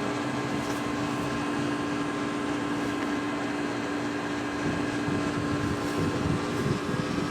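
A steady machine hum with a constant low tone.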